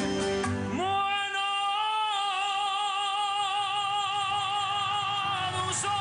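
A man singing solo into a microphone, sliding up into a long, high held note about a second in and sustaining it with slight vibrato for about five seconds before letting it fall near the end.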